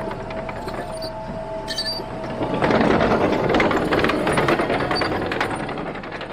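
Heavy earthmoving machinery running with a steady whine, then loud rattling and clattering about two and a half seconds in that lasts a few seconds.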